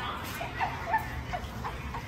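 Short high monkey-like hoots, about five in quick succession.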